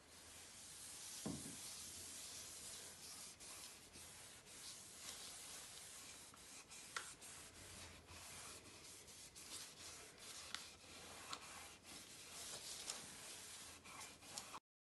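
Faint rubbing of a cloth wiping oil into a wooden cutting board, with scattered small clicks; the sound cuts off abruptly near the end.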